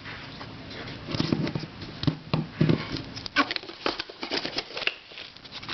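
Irregular plastic clicks and taps from twisty puzzles being picked up and handled.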